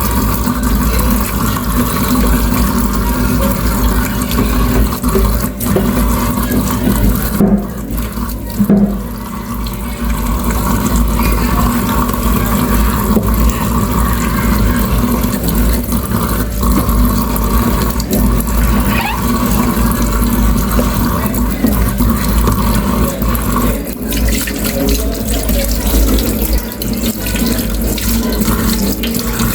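Tap water running steadily into a sink, the flow briefly weaker about eight seconds in.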